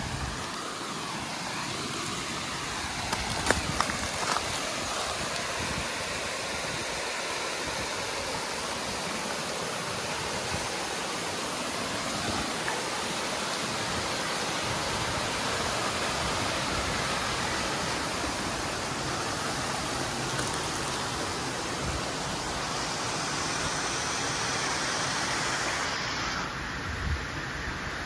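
Rocky mountain creek rushing and splashing over boulders in a steady hiss that grows gradually louder, then drops off sharply about two seconds before the end. A few short knocks sound around three to four seconds in.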